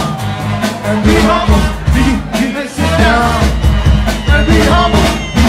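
Upbeat French-language pop song with a sung melody over a steady, driving bass beat.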